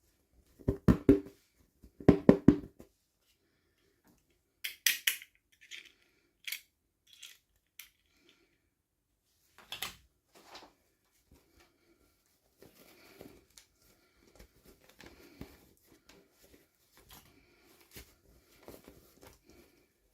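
Toy packaging and small pieces being handled during an unboxing. Two loud rattling bursts in the first three seconds, then a few sharp crinkles and clicks, and softer rustling through the second half.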